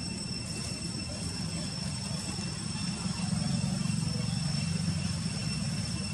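A low droning rumble, like a distant engine, that swells louder for a couple of seconds in the middle, with thin steady high-pitched tones above it.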